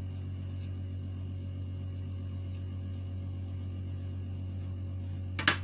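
Kitchen knife cutting broccoli florets held in the hand: a few faint small cuts, then one sharp, crisp snap about five seconds in, over a steady low hum.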